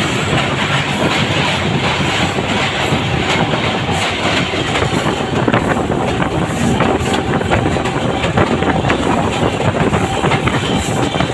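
A moving train, heard loud and steady: a dense rumble of wheels on rails with rapid, irregular clicking and clattering throughout. It cuts in suddenly at the start.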